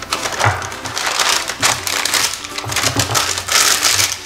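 Parchment paper crinkling and rustling as hands press and fold it into a glass baking dish, with upbeat background music underneath.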